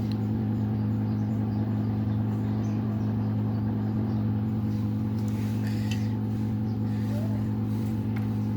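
A steady low electrical or machine hum, one deep tone with its overtone, running unchanged, with a few faint light clicks about five to six seconds in.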